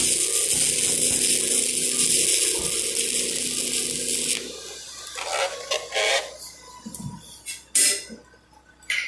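Stick-welding arc from a 7018 electrode crackling and hissing over a steady buzz, which breaks off suddenly about four and a half seconds in. A few light clicks and knocks follow.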